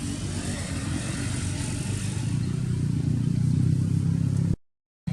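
An engine running steadily with a low hum, cutting off abruptly near the end.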